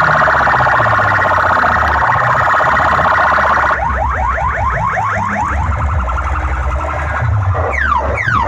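Horn-loudspeaker sound system played at full blast with a siren-like electronic effect. First comes a loud, rapidly pulsing buzzy tone; from about four seconds in there are quick repeated rising sweeps, about five a second, and a few more sweeps near the end, all over a steady deep bass.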